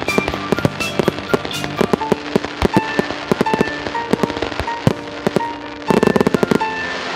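Fireworks display: a steady succession of sharp bangs and crackles from shells being fired and bursting, with a dense run of quick reports about six seconds in. Music plays underneath.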